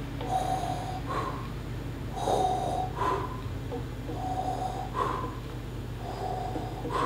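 Darth Vader-style respirator breathing: four slow in-and-out breaths about two seconds apart.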